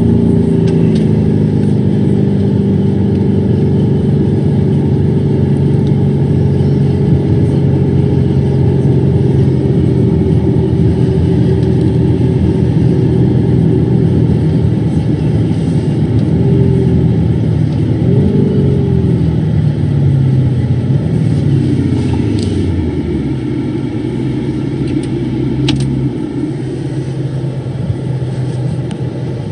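Lamborghini Urus twin-turbo V8 heard from inside the cabin with road and tyre noise, its note sinking slowly as the car slows, with a brief rise and fall in pitch about two-thirds through. For the last several seconds it settles to a lower steady note as the car comes toward a stop.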